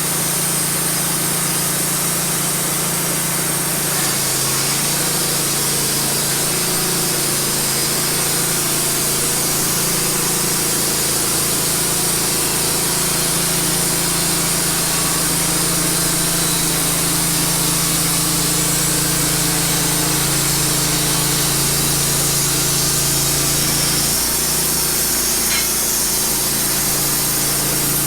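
Wood-Mizer LT15 band sawmill sawing through a cedar log: its engine runs steadily under load with a strong hiss from the blade in the wood. The engine's hum shifts briefly about 24 seconds in.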